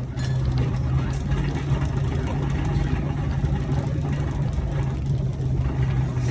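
A steady low mechanical hum, such as an engine running, over a rough noisy background. It comes in suddenly at the start.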